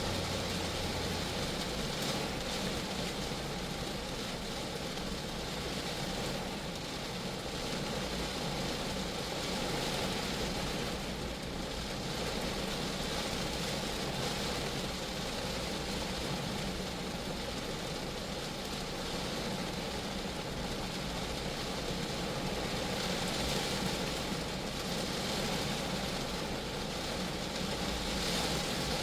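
Rain falling steadily on a Geo Metro's body, a constant even wash of drops.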